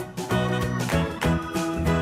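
Upbeat background music with a steady beat and plucked, guitar-like notes.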